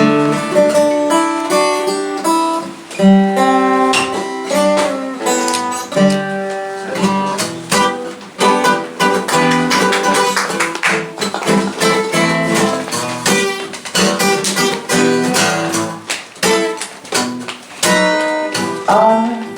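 Acoustic guitar played live, strummed with picked notes ringing out, as the song's introduction before the vocals.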